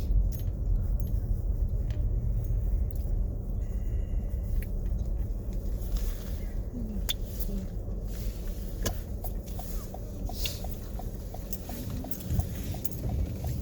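Car driving on a snow-covered road, heard from inside the cabin: a steady low rumble of engine and tyres, with scattered faint clicks and knocks.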